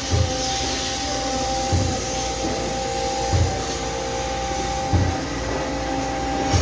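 Water-jet cake-cutting machine running: a steady hiss and hum with two held tones, and a short low thump repeating about every one and a half seconds.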